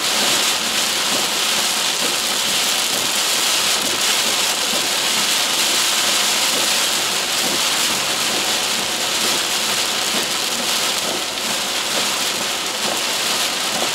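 Extremely heavy rain beating on a car's roof and windshield, heard from inside the car: a loud, steady hiss.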